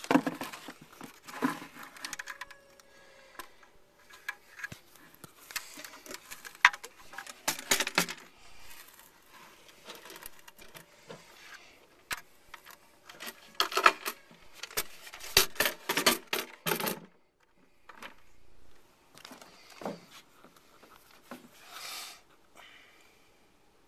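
Irregular clatter of hard objects being handled: sharp knocks, clicks and rattles in bursts, busiest about a second in, around seven to eight seconds and from about fourteen to seventeen seconds, with short quiet gaps between.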